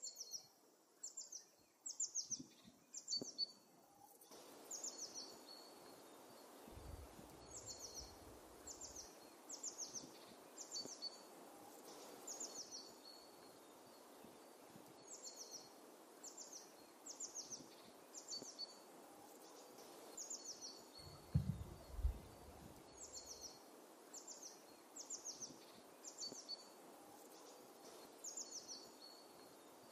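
A small songbird repeating a phrase of four or five quick, high, falling chirps every few seconds over a faint outdoor hiss. Two brief low thumps come about 7 and 21 seconds in.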